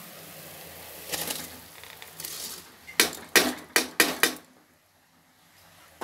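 Soaked basmati rice tipped from a steel bowl into boiling tomato water in a pressure cooker, with a couple of soft rushes as it pours in, then about five sharp metal knocks as the bowl is tapped against the cooker to empty it.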